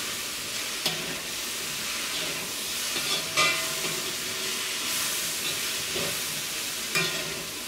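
Chicken pieces, cabbage and capsicum sizzling as they are stir-fried in a wok, with a steady hiss, and a metal spatula scraping and knocking against the pan now and then.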